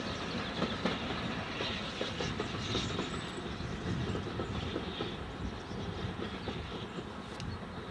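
Steam train hauled by an M7 class 0-4-4 tank locomotive drawing away into the distance: the engine's exhaust and the coaches' wheels clicking over the rail joints fade gradually.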